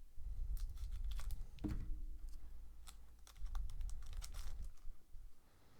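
A trading-card pack wrapper being torn open and crinkled, with cards clicking and sliding against each other as they are handled. A dull knock comes about a second and a half in.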